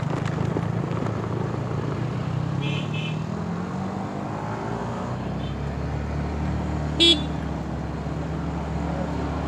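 Motorcycle engine running steadily under the rider as it climbs, with two quick high beeps about three seconds in and a short horn toot about seven seconds in.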